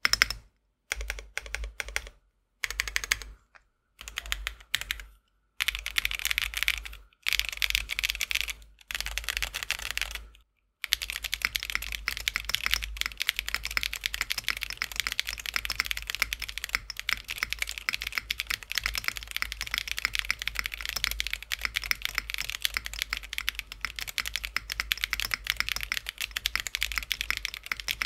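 Kinetic Labs Husky long-stem linear switches typed on a Tofu60 keyboard, with clacky keystrokes. It starts in short runs of keystrokes broken by pauses, then turns into continuous fast typing from about eleven seconds in.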